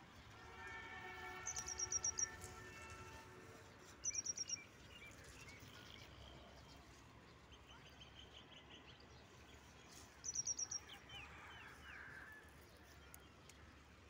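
A bird calling a short, rapid burst of high chirps three times, several seconds apart, with fainter chirps from other birds in an open field. A faint steady droning tone runs through the first few seconds.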